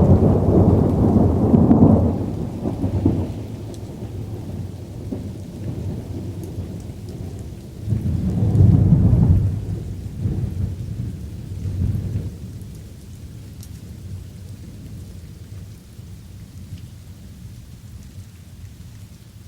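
Thunder rumbling over light rain. A loud rumble fades out over the first few seconds, and another swells up about eight seconds in and dies away. After that the rain goes on alone, quieter.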